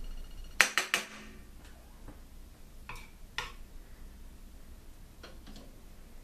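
A fork clinking against a plate while cheesy broccoli is served onto it: three quick taps about half a second in, the loudest, two more around three seconds in, and a couple of faint ones near the end.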